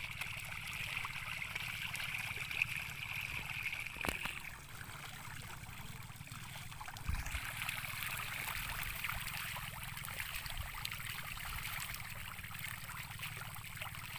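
Patin (pangasius catfish) crowding and splashing at the pond surface as they feed: a steady, continuous watery splashing and churning.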